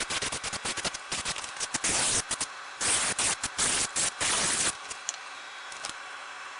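Aerosol spray can spraying: a rapid sputtering crackle, then several hissing bursts from about two seconds in until nearly five seconds in, after which it stops.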